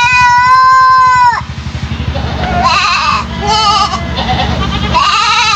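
Three-month-old goat kid bleating in a strange, unusual voice: one long, steady call in the first second or so, two shorter wavering calls around the middle, and another call beginning near the end.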